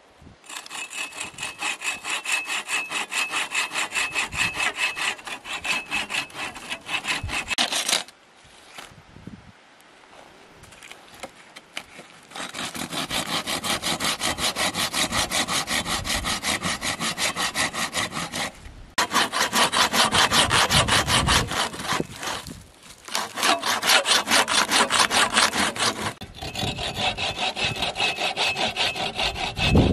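Hand saw cutting through a wooden pole in fast back-and-forth strokes. The sawing comes in several bouts, with a pause of a few seconds about a third of the way in and short breaks later.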